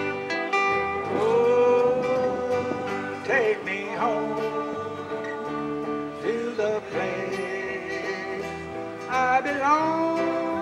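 A small live country band playing: strummed acoustic guitars with electric bass and electric guitar, while a woman sings long held notes that slide up into pitch.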